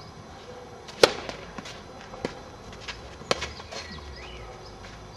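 Tennis racket striking the ball on a serve about a second in, loud and sharp, followed by a few more racket hits and ball bounces on the clay court as the point is played. Another hard hit comes a little past three seconds.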